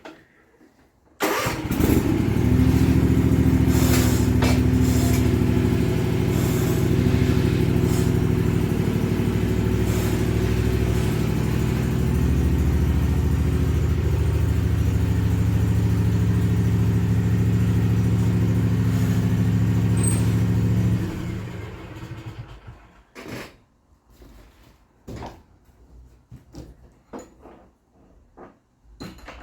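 Riding zero-turn mower's engine starting about a second in, running steadily for about twenty seconds, then shut off. A few scattered knocks and clicks follow.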